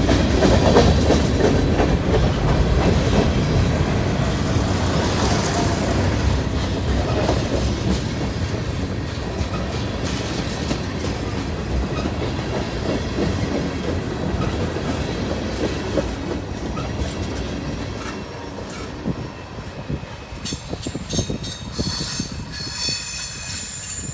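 Freight cars of a CSX train rolling past on jointed track, the wheels rumbling and clacking as the sound slowly fades. About twenty seconds in, high steady wheel squeal sets in.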